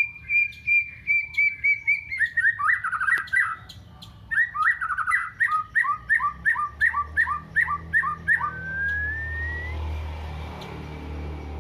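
White-rumped shama singing canary-style phrases it has learned: fast runs of repeated chirps and trills, ending in one long rising whistle about nine seconds in.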